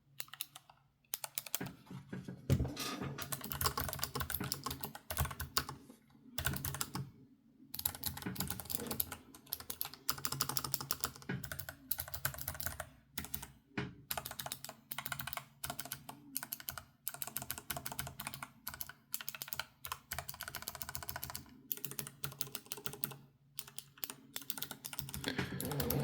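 Typing on an Asus ROG Falchion RX Low Profile keyboard with clicky blue switches: a fast run of key clicks, broken by a few short pauses. The click is a very kind of quiet one.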